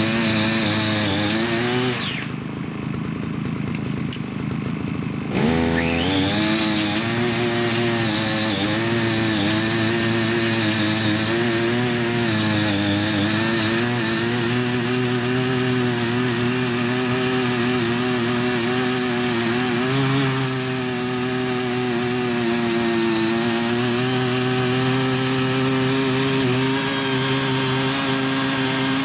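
CY50 mini power tiller's small petrol engine running at working speed while its rotary tines churn the soil. The engine throttles down about two seconds in and revs sharply back up a few seconds later. After that it runs steadily under load, its pitch wavering slightly as the tines bite.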